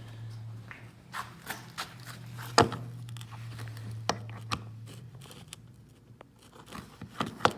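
Mold blocks and their pressed-in alignment pins being handled and pulled from a released press: a string of sharp metal knocks and clicks, the loudest about two and a half seconds in and a cluster near the end. Under them runs a steady low hum that stops a little past the middle.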